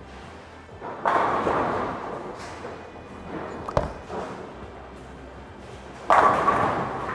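Bowling alley lane sounds: two loud crashes of pins, about a second in and near the end, each dying away over a second, with a single sharp thud of a bowling ball in between.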